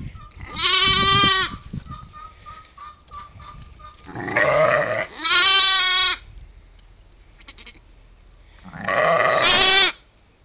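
Young lamb bleating four times in long, loud, wavering cries, the calls of a distressed lamb for its mother.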